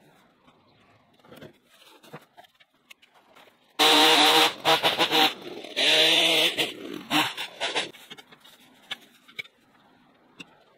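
Small petrol engine of a hand-held tool revving hard in two loud bursts, starting suddenly about four seconds in and dying away about eight seconds in, after a few seconds of faint clicks and knocks.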